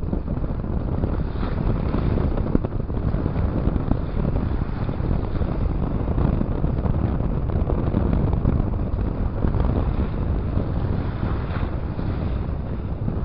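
Strong storm wind buffeting the microphone, heavy in the lows, over the wash of rough waves.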